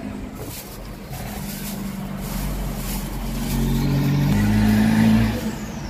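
An engine running with a steady low hum, its revs stepping up about four seconds in as it grows louder.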